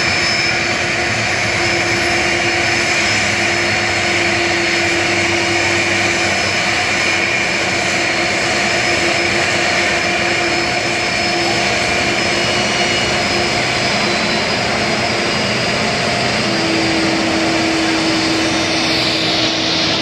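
Boeing 747's jet engines running, a loud, steady rush with a low hum and a higher whine over it, as the airliner moves along the runway.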